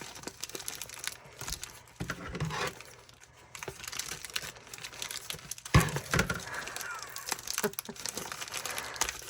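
Packaging crinkling and rustling as it is handled and pulled open, with scattered small clicks and a single knock about six seconds in.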